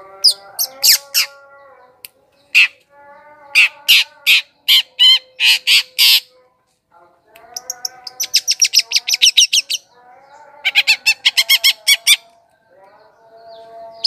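Cendet (long-tailed shrike) singing: fast trains of harsh, scratchy high notes, about ten a second, in several bursts, broken by lower whistled phrases, with a short pause about halfway through.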